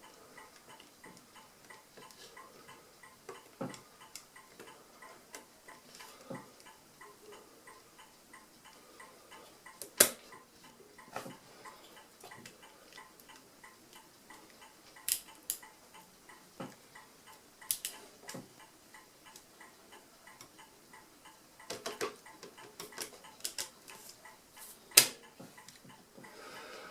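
Irregular small clicks and ticks of a mechanical calculator's setting levers and number wheels being moved and jiggled into line, with a few louder clicks here and there.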